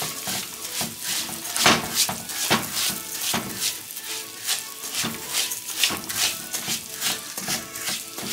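Wooden spoon stirring raw rice grains toasting in hot oil in a metal pot, scraping and sweeping across the pot in repeated short strokes about once or twice a second.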